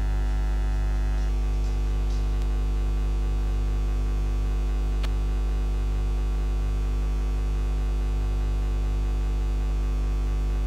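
Steady electrical mains hum with a buzz of many overtones on the live audio feed, unchanging throughout, with a single sharp click about five seconds in.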